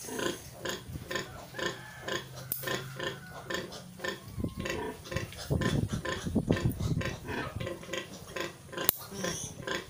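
Newborn piglet grunting in rapid short pulses, about four a second, louder about halfway through, while it is held and its needle teeth are clipped. Two sharp clicks stand out, one early and one near the end.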